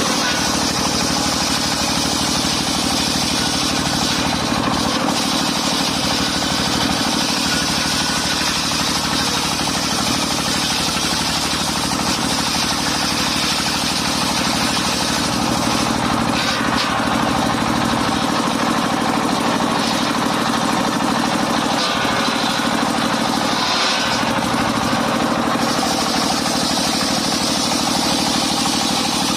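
Engine of a mobile circular sawmill running steadily at an even speed.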